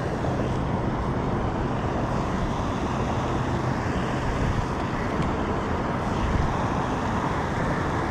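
Steady outdoor background noise: a continuous, even rumble with no distinct events.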